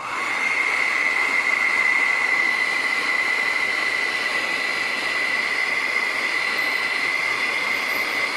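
Plastic welder gun running: a steady high whine over an airy hiss, starting suddenly and holding even.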